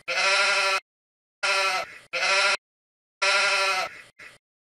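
Sheep bleating repeatedly: about four wavering bleats with short pauses between them, the last one cut short.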